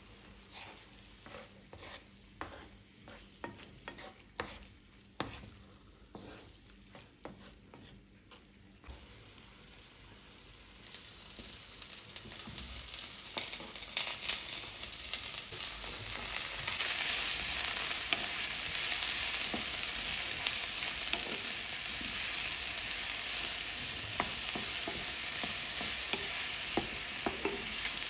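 A wooden spatula stirring crumbled tofu in a nonstick pan, a string of quiet scrapes and knocks about once a second. About eleven seconds in, chopped vegetables go into the hot pan and start sizzling, the frying growing louder and steady while the spatula keeps stirring.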